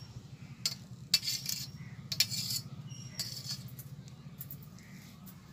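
Steel spoon scraping and clinking against a steel plate as it presses and smooths a mound of soft halwa, in several short bursts through the first few seconds.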